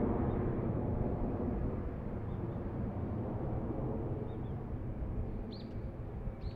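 Four-engine Boeing 747-400 jet noise from its GE CF6-80C2 turbofans at climb power after takeoff: a steady low rumble that slowly fades as the aircraft climbs away. A small bird chirps briefly a few times in the second half.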